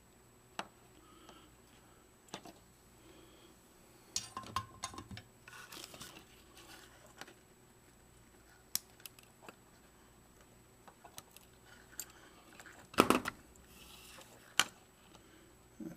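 Small wire cutters snipping component leads on a circuit board: scattered sharp clicks, the loudest a close pair about thirteen seconds in, with light handling of the board in between.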